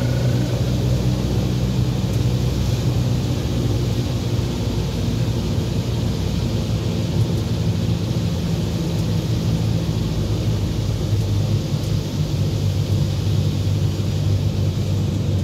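An old van's engine droning steadily, heard from inside the cabin while driving, with a constant hiss of tyres on a wet road.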